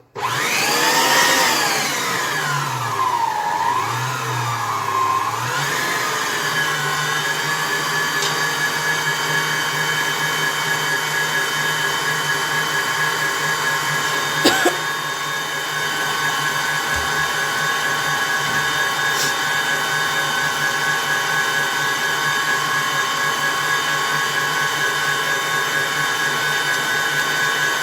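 Electric mixer switched on and beating an egg-and-sugar batter as oil goes in. Its whine dips and rises in pitch for the first several seconds, then settles to a steady pitch, with one brief knock about halfway through.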